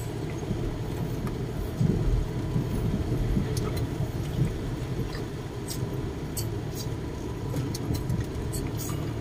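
Steady low road and engine rumble inside the cabin of a moving van, with scattered light clicks and rattles.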